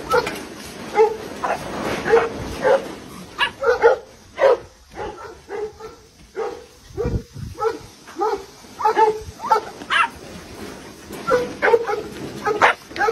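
Two dogs fighting through the bars of a cage, barking and yelping in short, repeated bursts, with a brief lull about halfway through.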